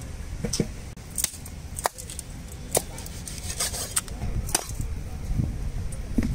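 Large knife cutting through the thick body of a big billfish, with a run of sharp, uneven knocks and scrapes as the blade goes through the flesh and strikes the wooden chopping block beneath.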